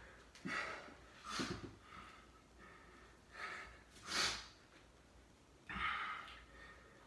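A man breathing hard with exertion: about five short, noisy breaths in and out, a second or two apart.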